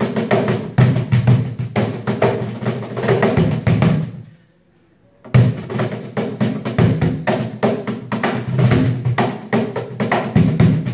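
Meinl cajon with snare strings inside, played in a fast groove with a brush in one hand and the bare hand on the front: deep bass strokes under quick sharp slaps. The playing stops for about a second partway through, then the groove resumes.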